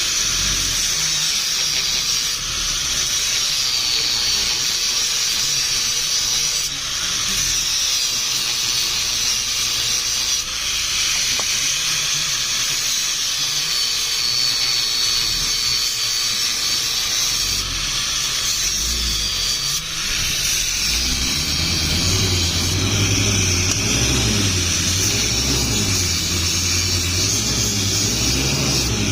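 A power tool running steadily with a loud hiss, its pitch slowly drifting up and down; a low rumble joins about two thirds of the way in.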